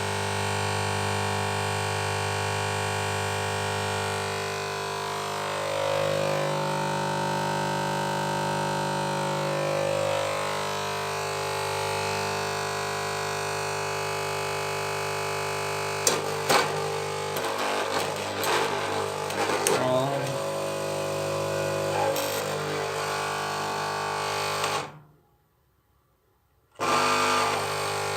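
Magnetic choke ballast of a fluorescent tube with a cut-off electrode, buzzing loudly with a steady hum of many tones. About halfway through, irregular crackling and sputtering join in as the end-of-life tube discharges across its broken electrode. Near the end the sound cuts out for about two seconds, then starts again.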